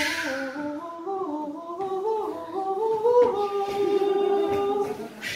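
A voice singing a wordless melody that climbs in short steps, then settles on a long held note about three seconds in and stops just before the end. A brief noisy rush is heard at the very start.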